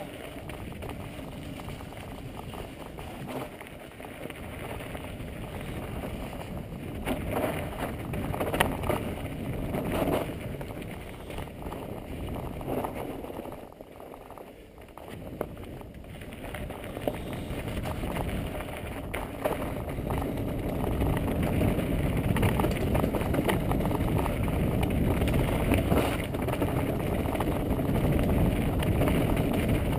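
Mountain bike descending a rough gravel-and-stone trail: tyres crunching over loose rock, the bike rattling and knocking over bumps, with wind buffeting the microphone. It goes quieter for a couple of seconds about halfway and is louder and rougher in the second half.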